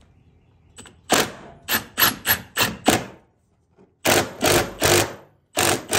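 Milwaukee cordless impact driver on a light setting, run in a string of short trigger pulls to back out 10 mm bolts: about seven quick bursts, a short pause, then about five more.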